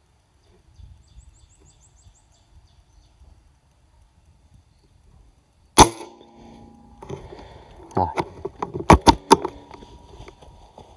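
A single air rifle shot about six seconds in, one sharp crack with a brief ring after it, followed a couple of seconds later by a quick run of clicks and knocks from the rifle being handled.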